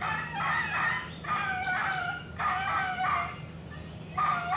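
A series of short, pitched animal calls, each under a second long, repeated about once a second with a few gaps.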